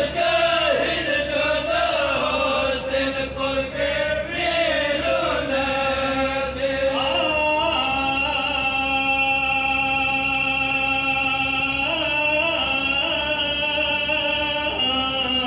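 Male reciters chanting a Pashto matam lament (nauha). The melody moves for the first half, then they hold one long note from about seven seconds in until near the end.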